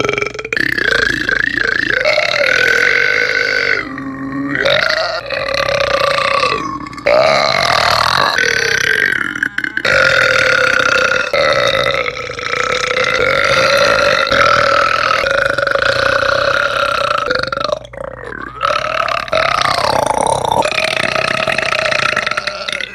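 A man burping loudly: a run of long, drawn-out belches with short breaks between them, one lasting about eight seconds.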